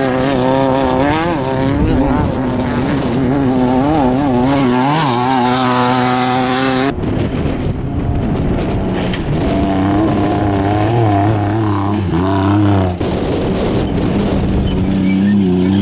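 Off-road race vehicles' engines revving up and down as they drive through desert dirt. Abrupt cuts about seven seconds in and again near thirteen seconds switch to a different engine each time.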